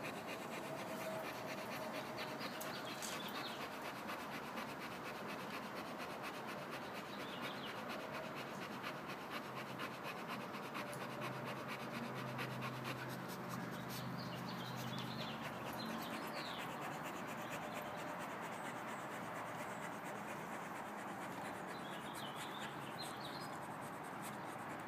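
Brittany dog panting steadily while towel packs are pressed and rubbed on her belly, with faint bird chirps now and then.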